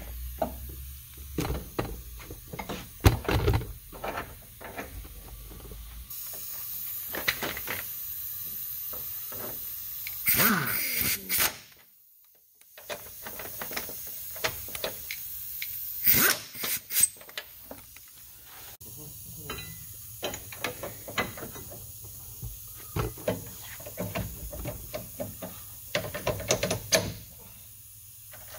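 Car-suspension workshop work as coilover struts are fitted: scattered metal clanks and knocks, a steady hiss lasting several seconds, and a few short bursts from a pneumatic impact gun run on the strut-top nuts.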